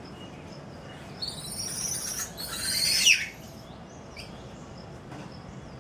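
A high-pitched, scratchy animal screech lasting about two seconds, ending in a sharp falling squeal about three seconds in.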